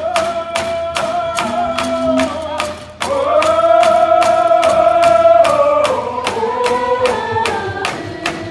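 A group of Lummi singers singing a Coast Salish song in unison over hand drums beaten in a steady pulse of about three beats a second. The voices hold long notes, break off briefly about three seconds in, then come back louder.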